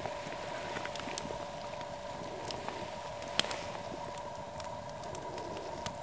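Small campfire crackling with scattered light pops and one sharper pop about three and a half seconds in, over a steady hiss.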